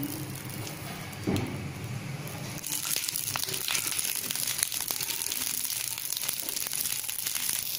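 Small whole brinjals frying in a spoonful of oil in a nonstick pan. They sizzle and crackle, rising to a steady sizzle about two and a half seconds in, with a metal spatula knocking and scraping as they are stirred.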